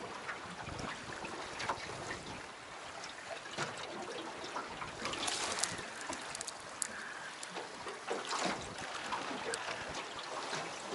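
Water trickling and lapping against a small boat's hull, with scattered short clicks and splashes.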